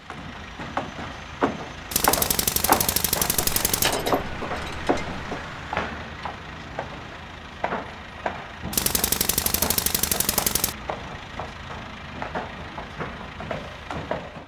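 Digging and construction work: scattered knocks and scrapes, with two bursts of fast, even pounding from a power hammer, each about two seconds long, the first about two seconds in and the second near the middle.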